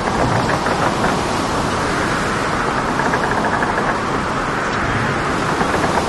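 Storm at sea heard from aboard a boat: a steady, dense rush of wind, breaking waves and rain.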